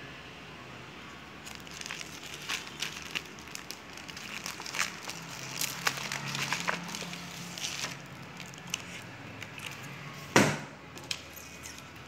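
Clear plastic sleeve crinkling and rustling as it is handled, with scattered clicks and crackles, then one sharp knock near the end that is the loudest sound.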